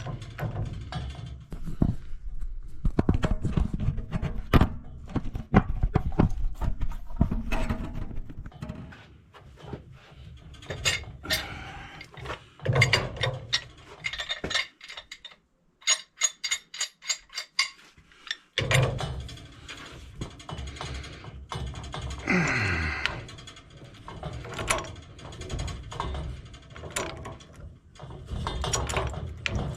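Wrenches and metal pipe fittings clicking, clanking and ratcheting as threaded fittings are taken off and put on, with a quick run of evenly spaced clicks midway.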